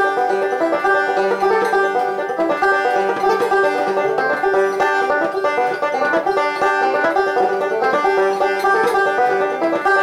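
Five-string Epiphone banjo being fingerpicked: an unbroken run of bright plucked notes.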